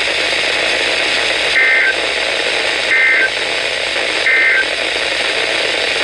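Weather radio reception with a steady static hiss, broken by three short, identical warbling data bursts about a second and a half apart: the SAME end-of-message codes that close an Emergency Alert System broadcast.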